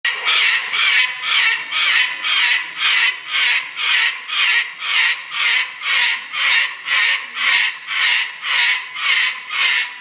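White cockatoo screeching over and over in a steady rhythm, about two harsh, loud squawks a second.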